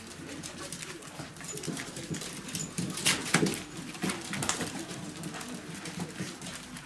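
Miniature pinscher puppies squeaking and making low cooing, whimpering noises as they tear at a whole rat, with scuffling clicks and knocks throughout; the sharpest knocks come about three seconds in.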